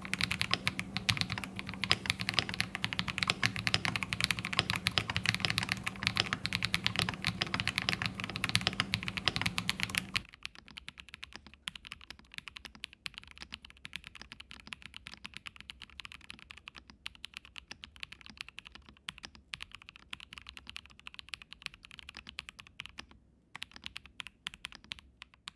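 Typing tests on a Pressplay Essential 75 mechanical keyboard with Vaporwave switches: rapid key clacks. For about the first ten seconds the recording is louder and bassier with a steady low hum, then it switches to a quieter, thinner take of the same typing.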